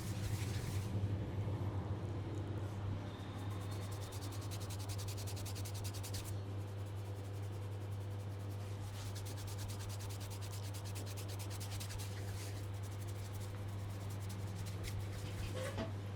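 Hands rubbing briskly over a person's scalp and hair in a head massage, fast rhythmic strokes that come in several spells, over a steady low hum.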